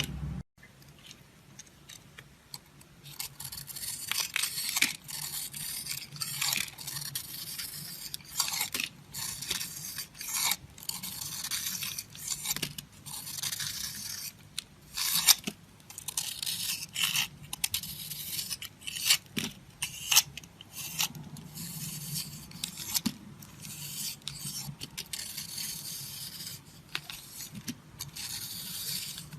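A knife scraping and shaving a bar of soap: a dense run of short, crisp scraping strokes that begins a few seconds in.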